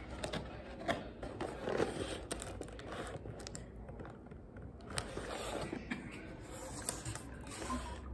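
Cardboard burger box and paper drink cup being picked up, moved and set down on a table: scraping and rustling, with a few light knocks spread through.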